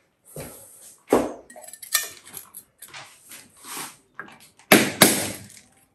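Hammer driving a chisel against glazed ceramic wall tiles to chip them off, with sharp strikes, scraping and the clink of tile pieces. Single hits about a second and two seconds in, smaller taps and scrapes between, and the loudest two strikes close together near the end.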